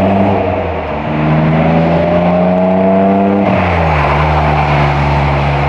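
BMW M52B28 2.8-litre straight-six in an E30 with a custom exhaust, accelerating through the gears. The revs climb, dip briefly at a shift about a second in, and climb again. They drop at another upshift about three and a half seconds in and then hold steady.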